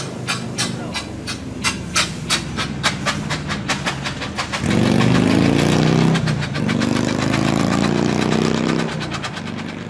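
Stanley steam car pulling away, its exhaust puffing in sharp chuffs that quicken as it gathers speed, with steam hissing. From about five seconds in a louder, rising drone takes over, dipping briefly and then rising again.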